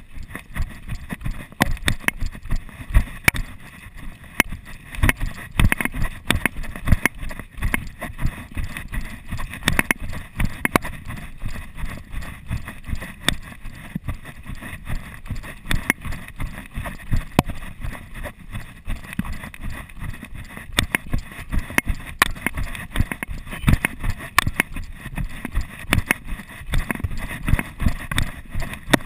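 Footfalls of a person running downhill on a dirt trail, picked up by a chest-mounted GoPro Hero 2: a quick, uneven series of thuds as each step jolts the camera.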